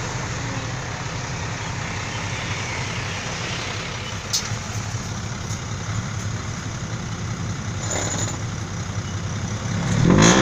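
Dump truck engine running steadily, growing louder near the end.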